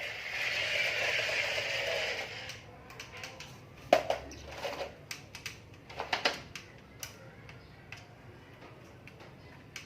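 A hiss for the first two seconds or so, then scattered plastic clicks and knocks from RC construction toys, an excavator and dump truck handling dirt, the loudest knock about four seconds in and a small cluster around six seconds.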